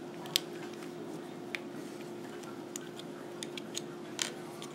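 Scattered sharp clicks and taps of a screwdriver working against the plastic housing of a snowplow light module as its cover is pried and worked off, the loudest click about a third of a second in and a few quick ones near the end. A faint steady hum runs underneath.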